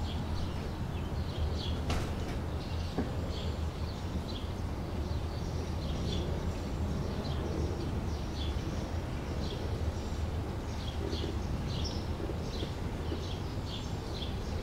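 Outdoor ambience: short, high chirps, likely small birds, repeating several times a second over a steady low rumble, with one sharp click about two seconds in.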